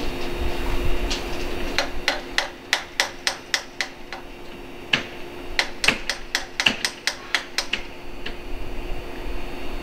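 Quick, sharp metallic taps from work on the coupling gear between two 115 series electric cars, several a second in two runs, then a few single taps near the end. A steady hum runs underneath.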